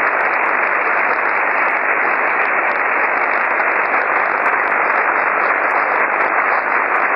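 Shortwave receiver hiss: steady 17-metre band noise through an SSB receiver, with no voice coming through.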